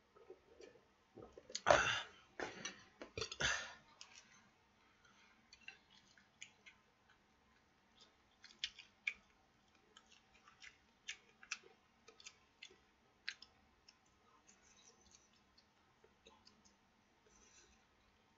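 A person eating close to the microphone: a short, louder cluster of noises about two seconds in, then chewing with many sharp, scattered clicks.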